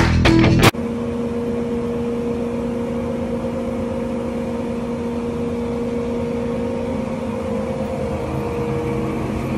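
Guitar rock music that cuts off abruptly about a second in. Then a Birmingham KV50 vertical bandsaw running, a steady motor hum with a low held tone that shifts slightly near the end.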